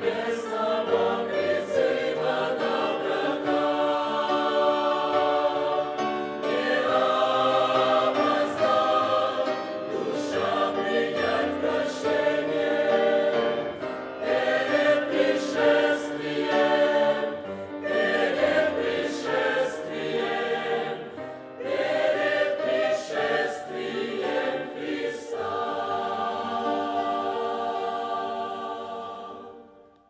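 Mixed church choir of men's and women's voices singing a Russian-language hymn in chords. Near the end the choir holds a final chord, which then fades away.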